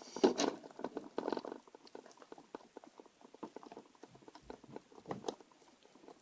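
Small metal screws rattling and clicking as they are handled, then a series of light clicks as they are driven back into a plastic laptop bottom cover with a small screwdriver. The clicks are densest in the first second and a half, then come singly and irregularly.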